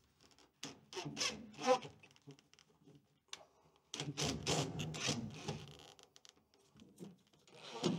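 DeWalt cordless drill driving screws into the wooden framing in several short bursts with pauses between, the screws scraping as they bite into the wood.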